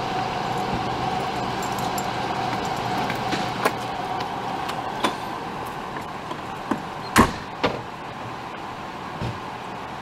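Emergency vehicles idling with a steady hum, broken by several sharp knocks, the loudest about seven seconds in.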